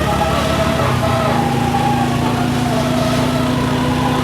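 A vehicle engine running steadily close by, with a steady hum that comes in about a second in and voices in the background.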